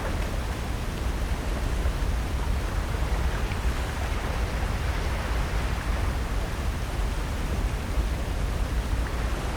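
Steady coastal outdoor ambience: an even rushing noise with a deep, fluttering low rumble and no distinct events.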